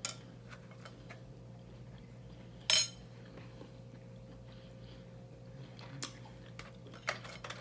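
Knife and fork laid down on a dinner plate: one sharp clatter nearly three seconds in, then a few faint clicks over a low steady hum.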